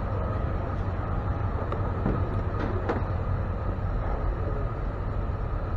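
Tow truck's engine running with a steady low rumble, with a couple of brief clicks about two and a half to three seconds in.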